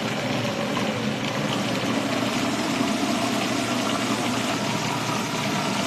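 Electric food processor running steadily, pureeing chopped tomatoes.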